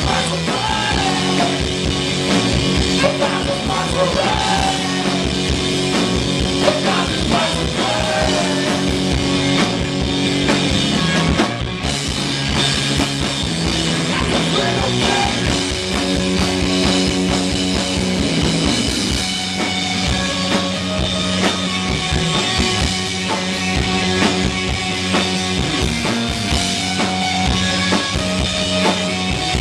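A post-punk rock band playing a song live at full volume, with the drum kit running throughout. There is one brief dip in the sound about twelve seconds in.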